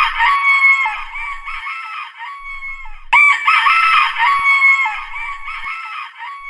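A rooster crowing twice: one call just as the sound begins and another about three seconds in, each loud at first and then trailing off.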